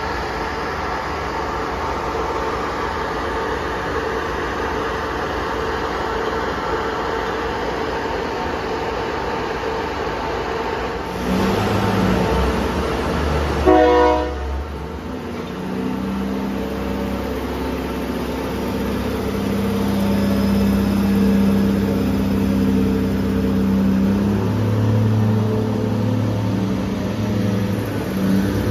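State Railway of Thailand air-conditioned diesel railcar set running at a station with a steady rumble of wheels and engines. About halfway through comes a short horn blast. After it the diesel engines drone steadily on a low note, a little louder near the end.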